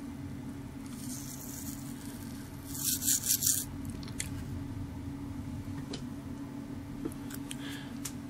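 Steady low hum, with a short burst of scratchy rubbing about three seconds in and a few faint clicks later.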